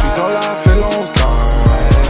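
Instrumental hip hop beat with no vocals: deep bass notes that drop in pitch, about four of them, under a held melody and sharp percussive hits.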